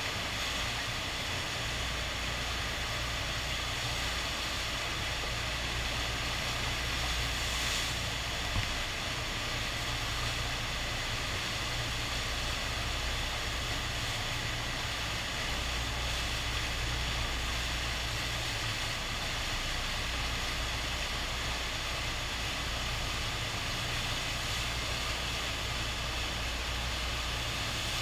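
Steady rushing roar of the FlowRider's sheet of water pumped up the wave surface, a constant hiss over a deep rumble, with one brief knock about eight seconds in.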